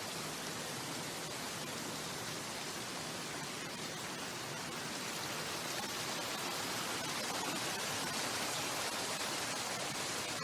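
Mountain stream water rushing, a steady hiss that grows slightly louder about six seconds in.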